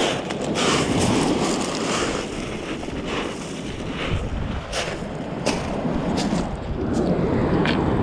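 Wind buffeting the microphone over waves washing up a shingle beach, with a few sharp crunches of footsteps on the pebbles in the second half.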